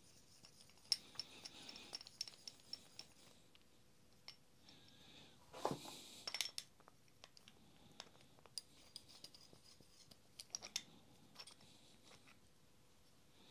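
Faint metal clicks and clinks of a steel two-jaw bearing puller being handled and its jaws fitted around the bearing on an electric motor armature, with a short louder clatter about six seconds in.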